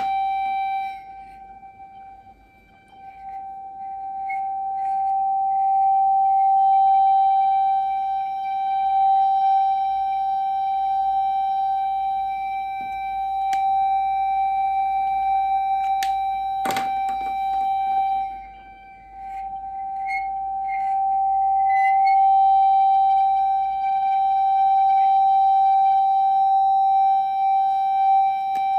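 Steady pure tone of about 778 Hz from a signal generator driving the loudspeaker of a closed resonance tube. It swells and fades as the plunger slides along the tube through loud resonance maxima and quiet minima, dipping almost away about a second in and again around 18 seconds. A single sharp tap sounds around 17 seconds.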